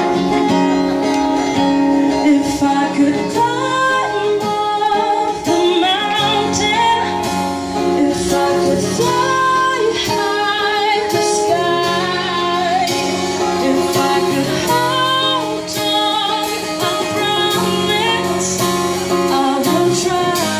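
Live band music: a woman sings over a strummed acoustic guitar, backed by the rest of the band.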